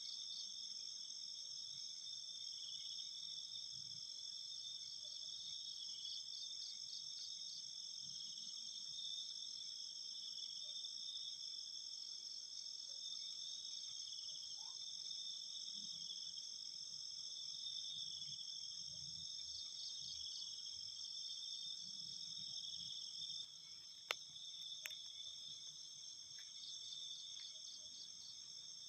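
A chorus of crickets and other night insects chirring steadily and high-pitched, with bursts of rapid pulsed chirping every few seconds. A single sharp click comes about two-thirds of the way through.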